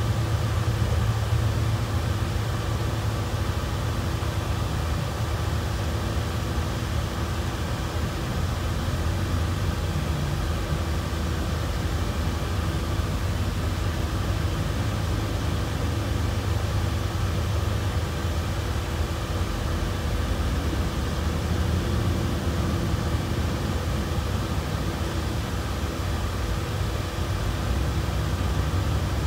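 Steady machinery hum: a low drone with a few faint steady tones above it, unchanging throughout.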